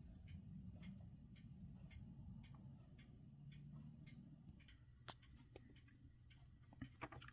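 Near silence: faint, scattered clicks over a low steady hum of room tone, with two slightly louder clicks near the end.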